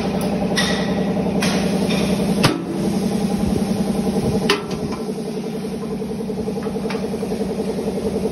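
A steady, pulsing engine-like machine drone runs throughout from some other running machine, since the grinder on show has no motor fitted. About two and a half seconds in, the grinder's steel lid clanks shut over its hammer rotor. A few lighter metal knocks come before and after it, with another sharp one about four and a half seconds in.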